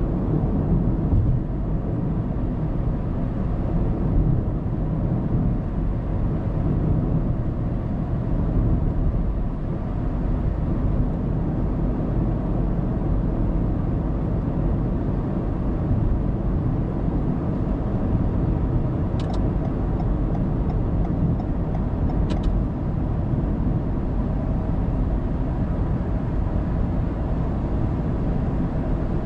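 Car driving on an expressway, heard from inside the cabin by a dashcam: a steady low hum of tyres and engine. Two brief faint clicks about three seconds apart come in the second half.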